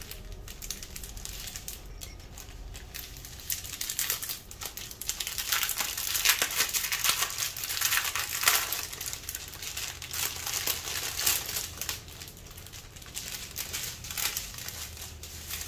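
Small clear plastic bags of diamond painting drills crinkling as they are handled and sorted, with irregular crackles that are busiest around the middle.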